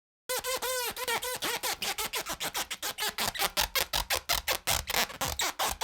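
A rapid series of short squeaks. The first few are clearly pitched, each rising then falling. They then grow quicker and scratchier, about six or seven a second, and cut off suddenly.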